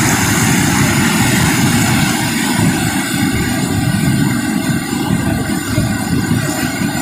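Volcanic lahar from Semeru rushing down the river channel: a loud, steady low rumble of a fast flood of sand, mud and boulders.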